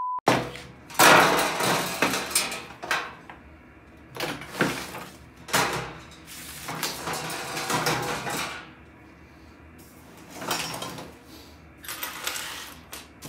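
Irregular knocks, scrapes and clatters from the powder-coated steel baskets of an IKEA Raskog cart and from tools being shifted about on a worktable, coming in short bursts with brief pauses between them.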